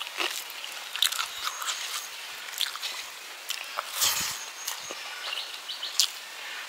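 Close-up mouth sounds of a person eating rice and curry by hand: wet chewing, lip smacks and clicks. There is a louder burst about four seconds in as a handful goes into the mouth.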